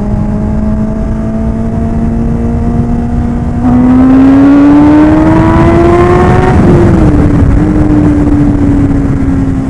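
Kawasaki Ninja ZX-10R's inline-four engine accelerating hard, its pitch climbing steadily and getting louder about four seconds in. Near seven seconds the pitch dips briefly, then holds and slowly falls.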